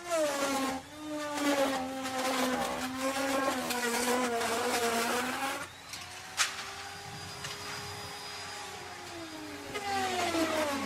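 Electric wood router running, its motor pitch sagging under load with a rough cutting noise as the bit cuts into wood for the first five and a half seconds. It then rises back to a steadier free-running whine, with one sharp click, and sags into the cut again near the end.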